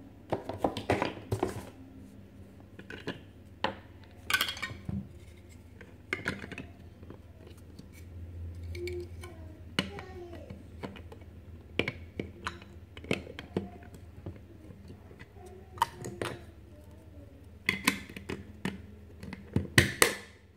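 Chunky plastic toy building blocks handled and snapped together by hand to build a toy train: irregular clicks and knocks with light plastic clatter, a few quick clusters of clicks about a second in, around four seconds, and near the end.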